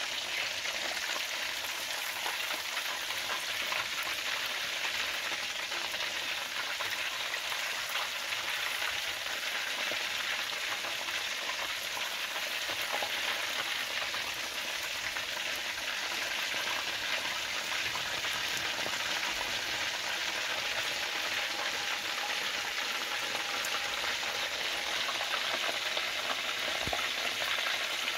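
Coated chicken fillets frying in hot oil: a steady sizzling hiss with fine crackling.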